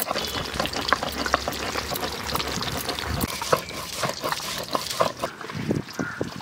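Ginger and garlic being ground to a paste on a flat grinding stone (sil-pata) with a hand-held stone roller: rough scraping of stone on stone with many irregular sharp clicks.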